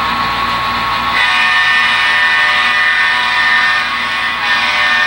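HO-scale model train running toward a tunnel mouth, giving a steady mechanical drone with a high whine. It grows a little louder about a second in.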